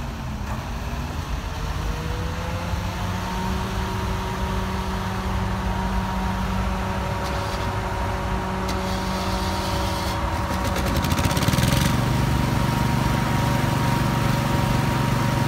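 A mobile crane's diesel engine runs steadily under load and speeds up about two seconds in, its pitch rising. It grows louder and deeper near the end, with a fine rapid rattle of machinery for a few seconds before that.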